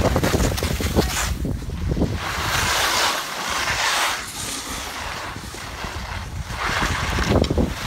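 Wind rushing over the microphone during a run down a snowy ski slope. Under it, a swishing hiss of snow swells and fades with the turns.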